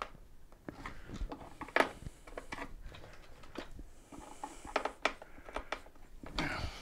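Scattered light clicks and clinks of hand tools: a screwdriver working screws on a mobility scooter's tiller and tools handled among the spanners, with one sharper click a little under two seconds in.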